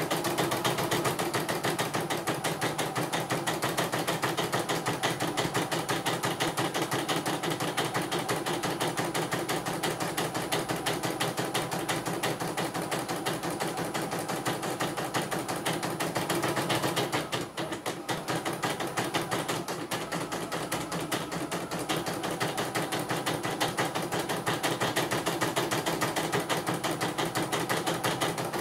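Portable computerised embroidery machine stitching: a fast, steady rattle of needle strokes, with a short dip about two-thirds of the way through.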